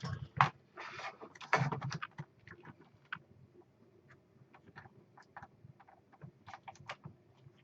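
Small metal clicks and rattles of coil springs being handled and slipped onto a CPU water block's mounting posts: a flurry of louder clicks and rustling in the first two seconds, then scattered light clicks.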